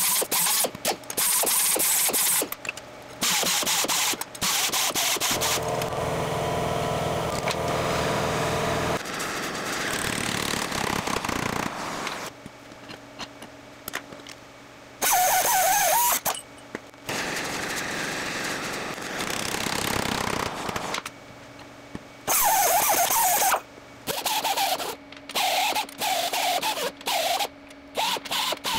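Metal-fabrication power tools running in short stretches one after another, with abrupt changes between them and a steady motor hum for a few seconds about six seconds in.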